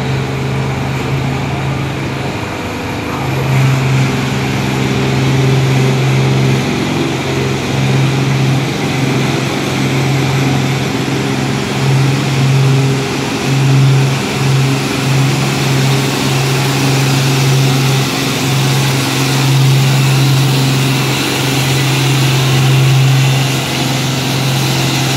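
Allis-Chalmers WD45 tractor engine running steadily at an even pitch, with a few brief dips.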